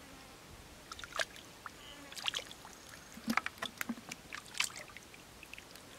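Hands splashing and squelching through shallow muddy water, in short irregular splashes that come more often from about two seconds in.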